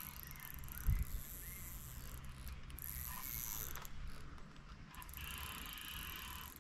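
Fishing reel's ratcheting mechanism clicking steadily while a hooked carp is played on the line. A dull thump about a second in is the loudest sound.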